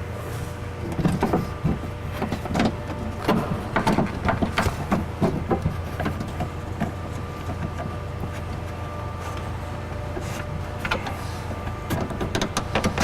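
Metal clinks and knocks as a power window regulator is handled and lined up inside a car door, in two flurries with a quieter stretch between, over a faint steady hum.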